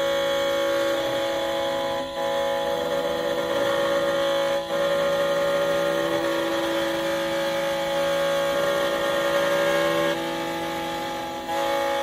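Xhorse Condor XC-Mini Plus automatic key cutting machine milling a high-security double-sided key: a steady motor whine made of several tones whose pitch shifts now and then as the cutter moves along the blade, with brief dips about 2 and 5 seconds in.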